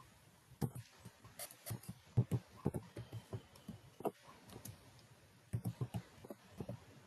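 Computer keyboard being typed on: irregular runs of keystrokes with short pauses between them.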